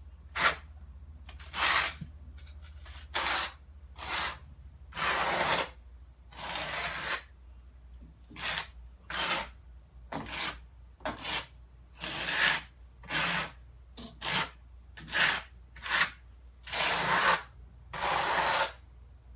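Notched trowel scraping tile mortar, about twenty irregular strokes each up to about a second long, as the mortar bed is spread and combed into ridges.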